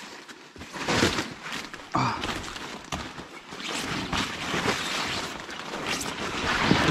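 Footsteps and the rustle of leaves and stems as people push through dense nalca undergrowth. The swishes come irregularly, sharp about a second and two seconds in, then closer together in the second half.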